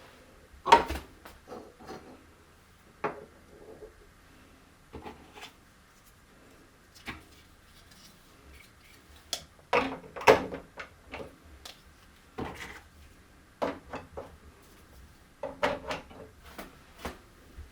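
Marble run toy pieces being handled and fitted together: irregular clicks and knocks, with the loudest knocks about a second in and again around ten seconds in.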